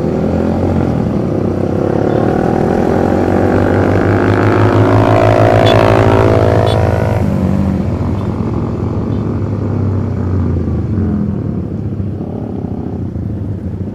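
Motorcycle engine heard from on board while riding, its pitch climbing steadily under acceleration for about seven seconds, then dropping suddenly and running lower and steadier.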